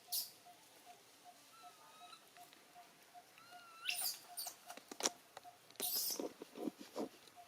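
Baby monkey squealing: a few short high-pitched squeals about four seconds in and a longer one about six seconds in, over a faint steady ticking about four times a second.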